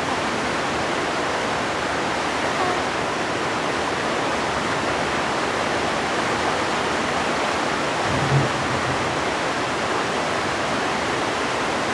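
Heavy rain falling steadily, a continuous even hiss of noise. About eight seconds in there is a brief low hum.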